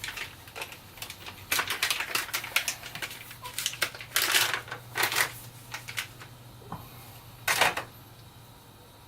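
Hard drive packaging being opened and handled: a run of clicks, taps and rustles, with louder crinkling bursts about four, five and seven and a half seconds in.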